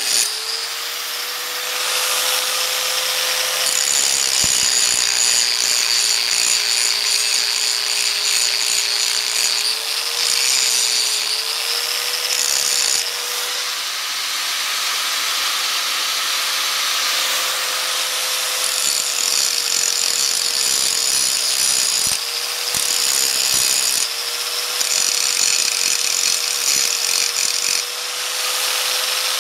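Electric angle grinder running steadily, its abrasive disc grinding a full roller rocker arm clamped in a vise. The grinding comes in three long stretches, and between them the motor whines on its own with the disc off the metal.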